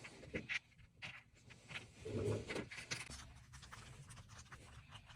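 Kinetic sand and plastic moulds being handled: scraping and light tapping, with a louder dull thump about two seconds in.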